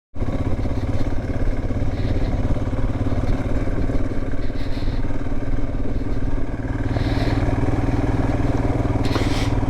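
Motorcycle engine running steadily while being ridden at an even pace.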